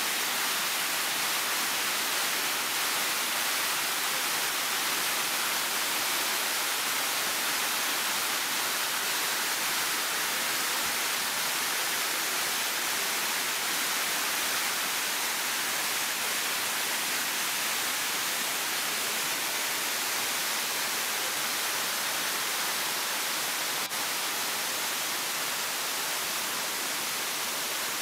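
Steady rushing hiss of a shallow stream cascading over flat rock, unbroken throughout, with one faint click near the end.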